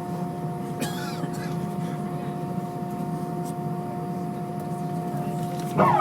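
Steady cabin noise inside an Airbus A320: a low rush with a constant hum of several steady tones. About a second in a brief high, wavering cry cuts through, and near the end a louder pitched voice-like sound starts.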